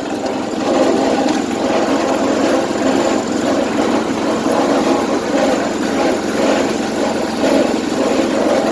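Small engine running steadily.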